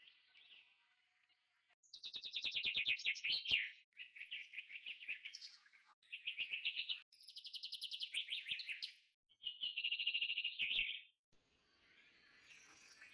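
Bird song: a run of rapid, high trills in five or six separate bursts of one to two seconds each, starting about two seconds in and stopping about eleven seconds in, with fainter chirping before and after.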